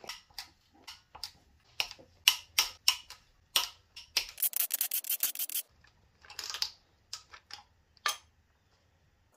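Metal tools and rocker arms clicking and clinking on the 5.3 L LS V8's cylinder head as the rocker arm bolts are loosened and the rockers lifted off, with a dense run of rapid ratchet-like clicks about four seconds in.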